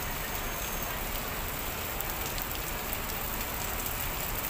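Steady rain falling: an even hiss with scattered small ticks of drops hitting.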